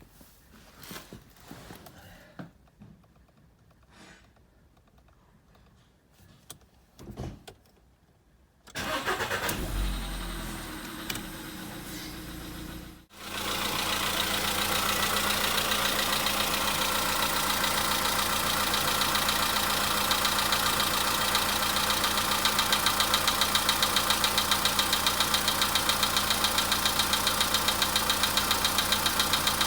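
Volkswagen Polo Sedan's CFNA four-cylinder petrol engine being started: a few faint clicks, then cranking from about nine seconds in, catching about thirteen seconds in and settling into a steady idle with a fine rhythmic knock, the engine knock the owner is showing.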